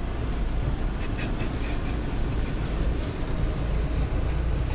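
Steady low rumble of a minibus driving along a rough dirt road, heard from inside the cabin: engine and tyre noise.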